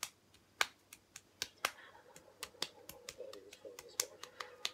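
A run of sharp, irregular clicks and taps from fidgeting hands, about four a second.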